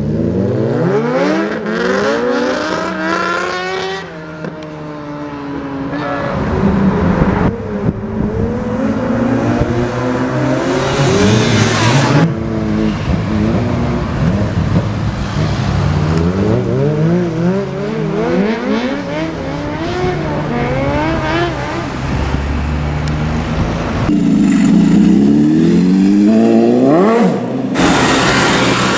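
Sport motorcycle engines revving hard, their pitch climbing and dropping repeatedly as the bikes accelerate, in a series of short clips that cut abruptly from one bike to the next.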